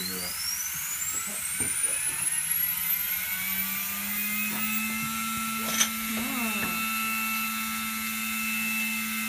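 Mining machine spinning up: a high whine rises steadily in pitch over the first few seconds while a low steady hum with higher overtones builds under it, then runs on evenly. A few faint clicks sound over it.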